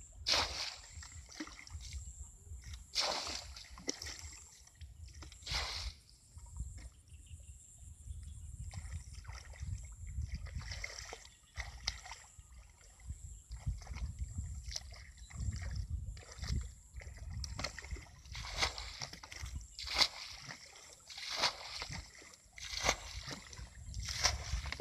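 A plastic bucket bailing water out of a shallow ditch: water is scooped and flung out in splashes every few seconds, over a steady low rumble.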